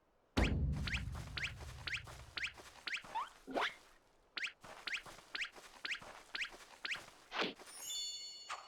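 Short high-pitched wheezing squeaks repeating about twice a second, like a fast breathing rhythm. A sudden low thump comes about half a second in and is the loudest sound, and a few brief high ringing tones follow near the end.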